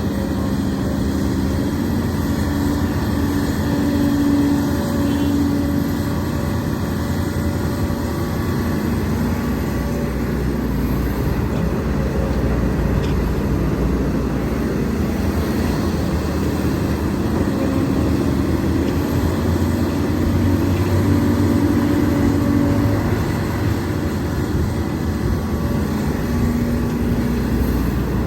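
Hidromek HMK230LC excavator's diesel engine running under load while loading a dump truck, with its note and level rising for a few seconds about four seconds in and again around twenty seconds in.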